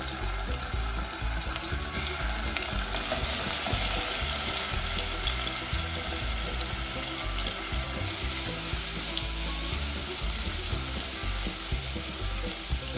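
Ginger-garlic paste sizzling steadily in hot oil in a pot, with a spoon stirring it.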